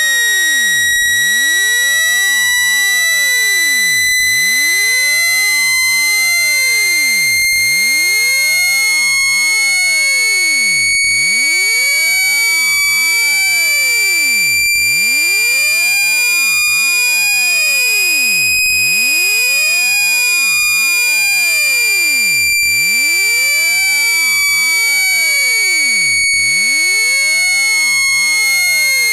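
Synthetic speaker-cleaning 'water eject' tone, meant to shake water out of an iPhone speaker. It is a loud, continuous, high-pitched buzzy tone that slowly rises in pitch, peaks about two-thirds of the way through, then drifts down a little.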